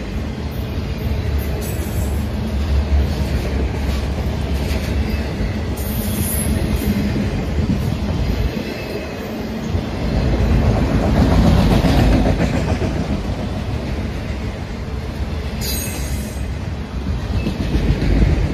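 Freight train of autorack cars rolling past close by, its wheels running steadily over the rails, loudest about two-thirds of the way through. Brief high-pitched wheel squeals cut in twice.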